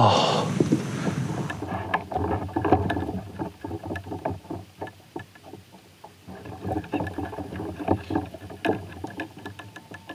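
Water lapping and slapping against a kayak hull, with many small irregular knocks.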